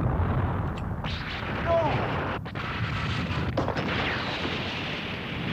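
Cartoon explosion-and-rumble sound effect: a continuous, deep, noisy rumble that holds steady throughout.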